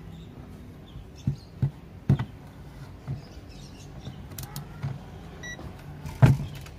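Handling of a digital multimeter and its test probes on an amplifier circuit board: several sharp clicks and knocks, the loudest about six seconds in, with a short high beep about five and a half seconds in.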